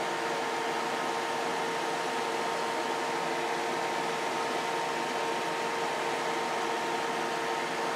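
Steady hiss of background noise with a faint steady hum, like a fan or air conditioner running, unchanging throughout.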